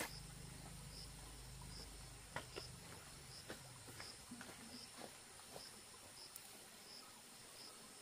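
Faint insect chirping in short, evenly spaced pulses, about one every 0.7 seconds, over a steady high hum. A few faint ticks come through, and a low rumble fades out after about two seconds.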